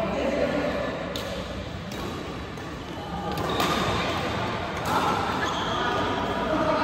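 Badminton rackets striking a shuttlecock in a rally: sharp hits about a second apart, echoing in a large hall.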